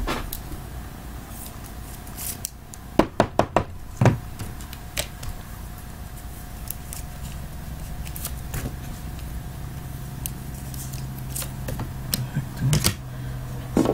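Trading cards being handled and slipped into soft plastic sleeves: scattered light clicks and taps, with a quick run of four clicks about three seconds in.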